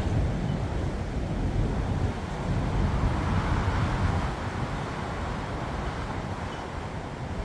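Strong blizzard wind buffeting the microphone, an uneven low rumble under a steady rush of wind.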